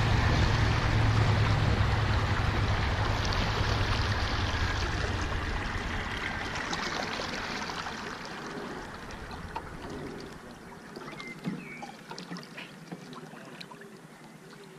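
Steady rush of water along a moving rowing boat, dying away over about ten seconds. Near the end only light splashes and small clicks from the oars are left.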